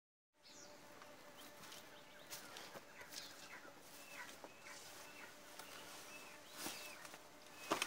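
Faint outdoor ambience of birds chirping in short repeated calls over a thin steady hum, with a few soft knocks and rustles, the loudest two near the end.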